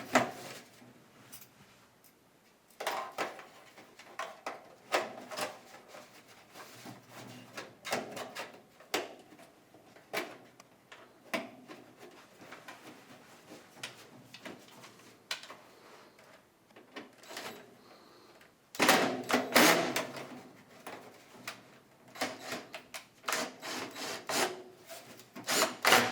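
Scattered knocks, clicks and rubbing as a dryer exhaust pipe is handled and pushed onto the exterior vent connection, with a louder stretch of clattering about three quarters of the way through.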